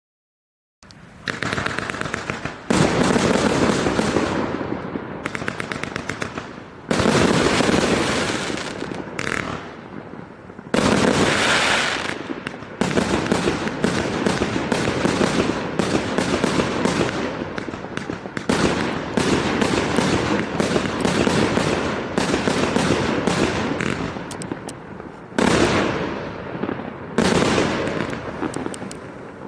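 A 138-shot fireworks cake firing in a rapid, nearly continuous barrage of shots and bursts. It starts about a second in and swells into several sudden louder volleys.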